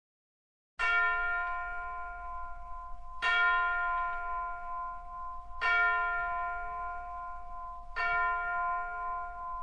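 A bell struck four times, about two and a half seconds apart, each stroke ringing and fading into the next, as the opening of a song recording. Just before the first stroke there is a moment of silence.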